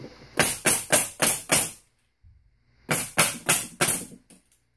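Hitachi pneumatic nail gun firing in bump-fire mode: two rapid bursts of sharp shots, about four a second, five in the first burst and four in the second, with a pause of about a second between.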